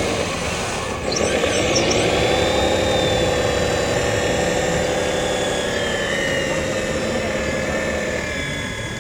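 Hydraulic pump of a radio-controlled CAT model excavator running under load as the boom and bucket move: a steady mechanical whine whose pitch drifts as the hydraulics work. It gets louder about a second in and eases off near the end.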